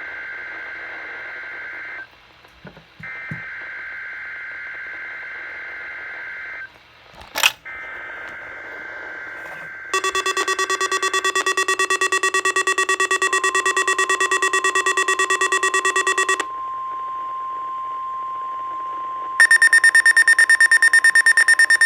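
NOAA weather radio warning-alarm test. The SAME digital header comes first: three two-tone data bursts, with a sharp click after the second. Then a receiver's alarm buzzes in rapid pulses for about six seconds, while a steady single warning tone sounds beneath it and runs on. Near the end a second, harsher alarm starts beeping rapidly.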